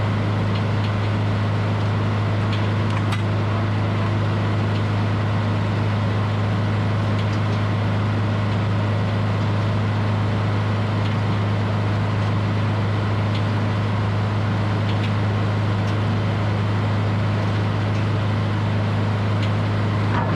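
Edmiston hydraulic sawmill running at a steady drone, its power unit and head saw holding one even low pitch without change.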